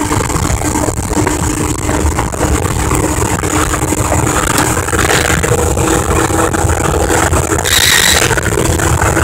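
A 115 hp Evinrude two-stroke outboard runs steadily at speed, mixed with the rush of wind and water past the bow. A louder hiss comes in near the end.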